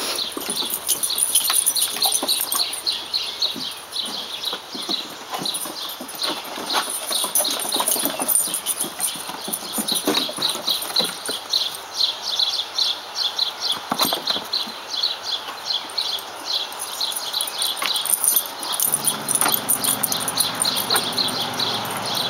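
Dogs' paws and claws clicking and scuffing on wooden deck boards as a large bloodhound and Lab puppies move about, over a fast, steady, high-pitched ticking pattern.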